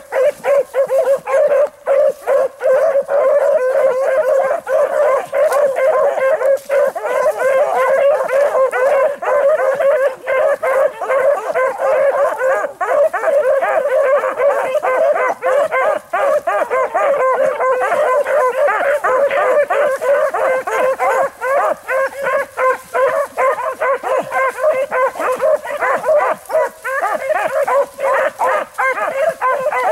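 A pack of beagles baying without a break while running a rabbit's track, several voices overlapping: the hounds are on the scent and the chase is coming on.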